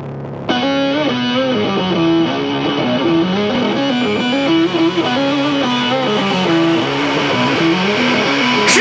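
Background rock music: an electric guitar riff winding over a held low note, with a crash near the end as the full band comes in.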